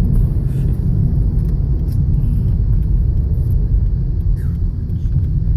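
Steady low rumble of a car being driven, heard from inside the cabin: engine and tyre-on-road noise.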